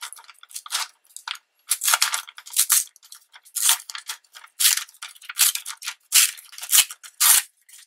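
Glossy magazine paper torn and rustled by hand, a series of short, irregular rips and crackles.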